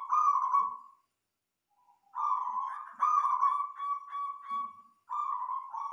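Zebra dove (perkutut) cooing in soft, pitched notes. A short phrase at the start is followed by a brief pause, then a longer phrase of repeated coos about two seconds in, and another phrase begins near the end.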